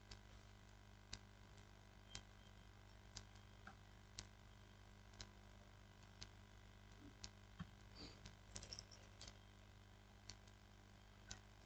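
Near silence: room tone with faint, sharp ticks about once a second and a few soft clicks about eight seconds in.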